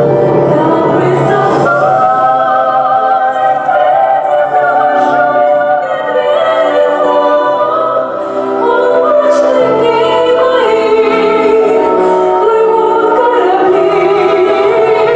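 A song from a stage musical, sung by several voices in chorus with instrumental accompaniment.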